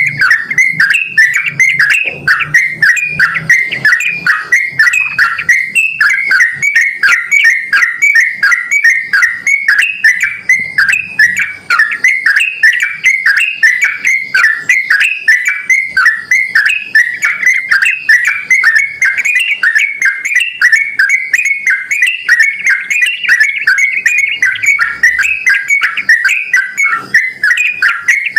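Yellow-vented bulbul singing vigorously: a continuous run of short whistled notes, about three a second, with no break.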